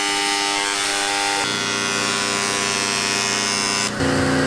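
Electric engraving pen buzzing steadily as it engraves a serial number into the metal case of a limited-slip differential; its note changes about a second and a half in. Near the end it gives way to a different steady machine hum.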